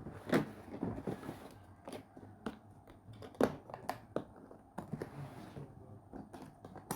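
Hands handling a cordless impact drill and its packaging: scattered sharp clicks and knocks with short bursts of rustling.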